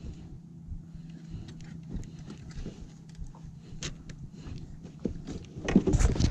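Steady low hum of a small boat motor at trolling speed, under scattered clicks and knocks of tackle being handled in an aluminum boat. A louder clatter of knocks comes near the end.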